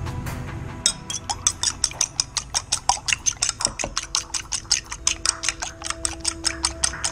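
A metal fork beating two raw eggs in a ceramic bowl, clicking rapidly against the bowl's sides at about five strokes a second, starting about a second in.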